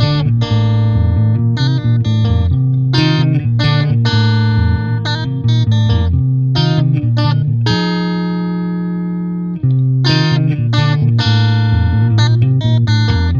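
Instrumental timelapse background music made of quick plucked notes over a bass line. About eight seconds in it pauses on one held chord for about two seconds, then the quick notes resume.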